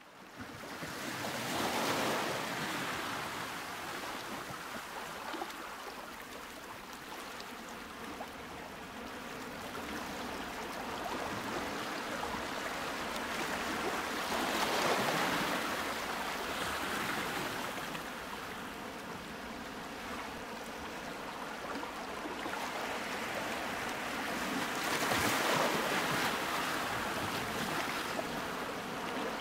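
Ocean surf ambience: steady wash of waves, rising in three slow swells of surging surf.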